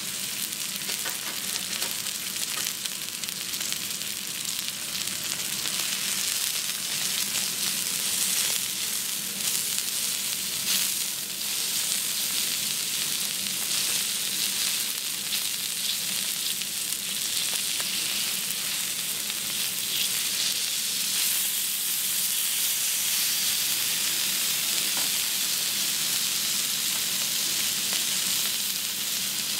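Thick beef steak sizzling steadily on a hot teppanyaki iron griddle: a high, even frying hiss with a few faint clicks.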